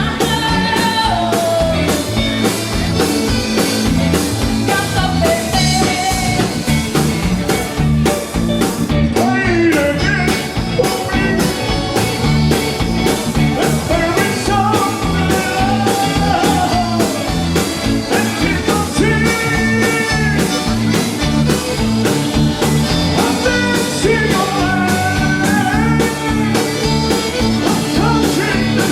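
A band playing a song with a singer, drums keeping a steady beat under guitar and a sung melody.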